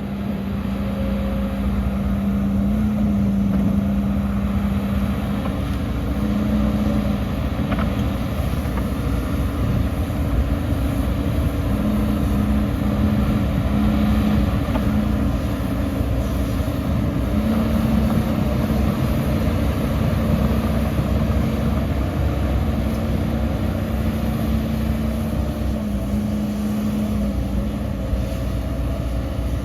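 Diesel engine of heavy earthmoving machinery running steadily under work, its pitch stepping briefly higher several times.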